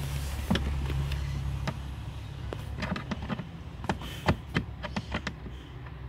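Irregular small clicks and ticks of a screwdriver working a screw in a plastic lower dashboard panel, with the panel being handled, over a steady low hum.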